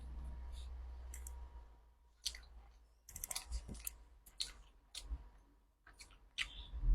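Close-up eating mouth sounds: an irregular run of sharp clicks and smacks from chewing, starting about two seconds in, over a faint low hum.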